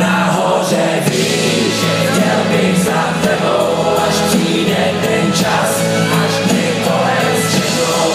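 Loud live rap-rock band music from an arena PA, with sung vocals from several voices together over a held bass note, recorded from inside the crowd.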